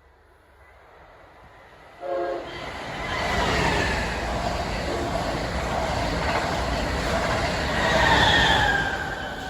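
A passenger train's horn gives a short blast about two seconds in. Then the train rushes past the platform, a loud rumble of wheels on rail that builds to a peak near the end. Tones in the sound slide down in pitch as it goes by.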